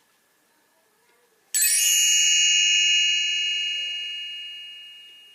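A single bright chime struck about a second and a half in, ringing with several high tones and slowly dying away: the read-along's page-turn cue.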